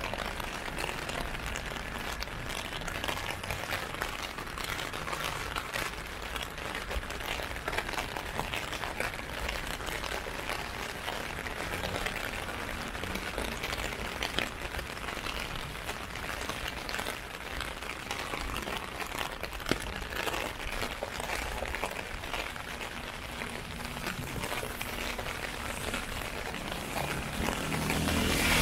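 Rain pattering on an umbrella, a dense steady crackle of drops. Near the end a vehicle comes in, growing louder.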